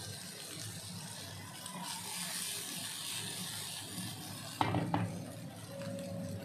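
Chicken satay skewers sizzling lightly in a nonstick grill pan on a gas burner, then the pan knocks twice against the stove grate as it is shaken and set back down about two thirds of the way through.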